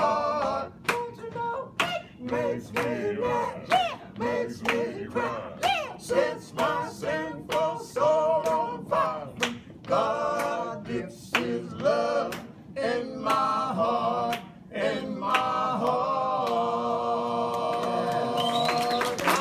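Male gospel trio singing a cappella in close harmony, with sharp hand claps keeping time about twice a second. The song closes on a long held chord over the last few seconds.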